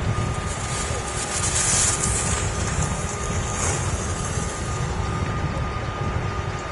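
Outdoor rumble of wind buffeting the microphone, under a faint steady hum. About two seconds in, and briefly again near four, comes the hiss of a giant-slalom racer's skis scraping on hard-packed snow through the turns.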